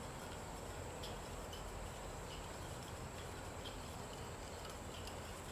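Quiet background noise with a steady high-pitched whine and a few faint scattered ticks. The wooden nunchaku on their paracord cord make almost no sound as they are twirled.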